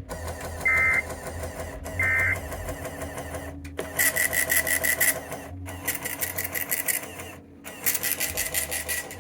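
Two short data-burst tones of an Emergency Alert System end-of-message signal, about a second and a half apart. From about four seconds in, a rhythmic mechanical buzzing with a steady high whine takes over, broken twice by brief dropouts.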